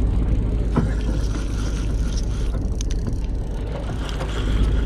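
Steady low rumble of a charter fishing boat's engine, with a few light knocks.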